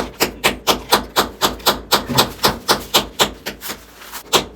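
Rapid, even tapping strikes during hand plumbing work, about four a second, with a short lull of weaker taps near the end.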